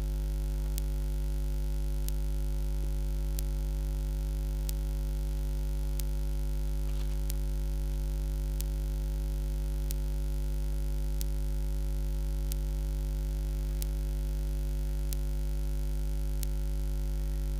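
Steady electrical mains hum: a low, even buzz at 50 Hz with its overtones, picked up by the sound system. Faint ticks recur regularly, a little over a second apart.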